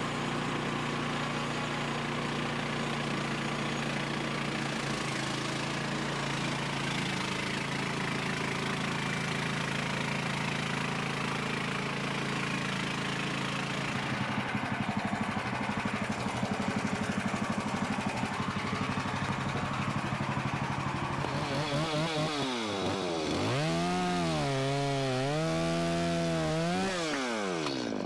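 Engine of a portable band sawmill running steadily under load as the band blade cuts a board from a log. From about 22 s in, the engine note dips, comes back up, then falls away near the end.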